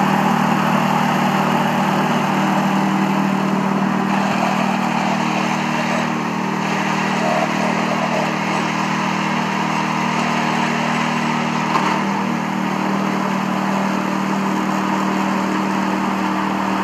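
Walk-behind 3-in-1 sweeper's 6.5 hp single-cylinder petrol engine running steadily at a constant speed while its rotating brush sweeps loose soil across concrete.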